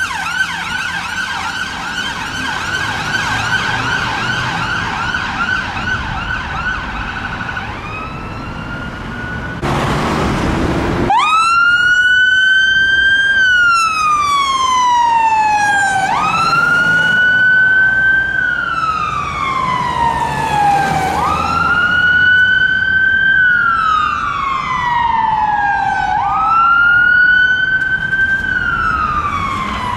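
Ambulance siren on a fast warble, fading away over the first several seconds, then a short burst of hiss. A fire engine's siren then starts up on a slow wail, rising quickly and falling slowly, about every five seconds.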